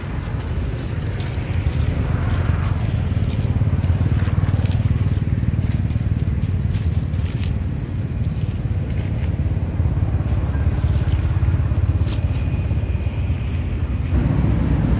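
Dry leaf litter crackling and crunching, as if stepped through, over a steady low rumble.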